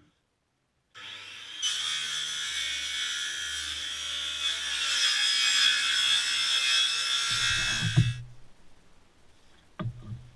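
Cordless power saw cutting through a long wooden board, running steadily for about seven seconds and stopping with a knock, followed by a few light knocks near the end.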